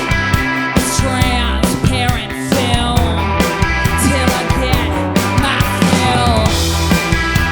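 Rock band playing live: drum kit with regular hits, electric guitar and bass guitar.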